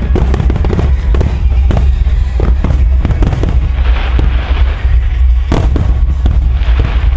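Fireworks bursting in quick succession, many sharp bangs and crackles, over music played for a music-synchronised fireworks show.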